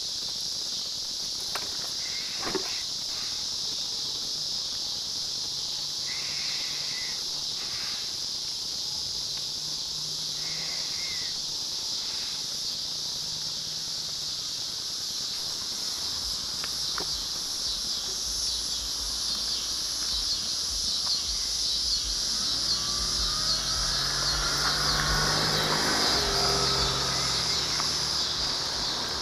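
Steady high-pitched chorus of insects. In the second half a low rumble grows, and a car engine approaching gets louder over the last several seconds.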